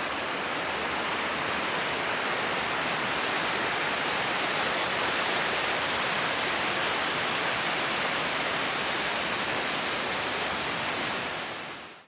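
Rushing water of a mountain river pouring in small cascades and whitewater over rock slabs: a steady, even roar that fades out near the end.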